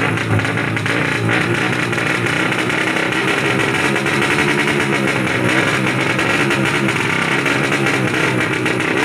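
Tuned 200 cc four-stroke underbone (bebek) drag bike engine running at high revs, steady and loud.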